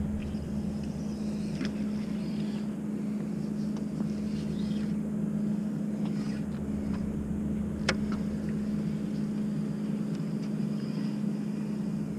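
Steady low engine hum holding one unchanging pitch, with a single sharp click about eight seconds in.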